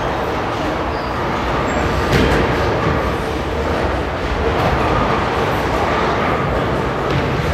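Steady, loud indoor ambience of a busy shopping mall: a continuous echoing din of crowd and movement with no single sound standing out.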